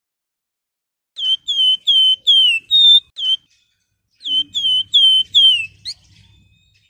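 Flamboyan (Javan fulvetta) singing: two loud phrases of clear, down-slurred whistles, about six notes and then four, the second ending on a short rising note.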